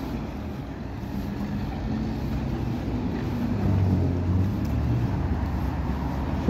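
Road traffic on a city street: engines and tyres of passing cars rumbling steadily, swelling as a vehicle passes close about halfway through.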